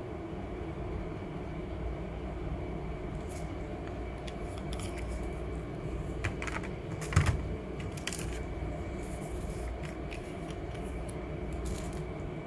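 Steady low room hum with scattered light clicks and taps of paint tubes being handled on a tabletop, including one louder knock about seven seconds in as a tube is set down or swapped.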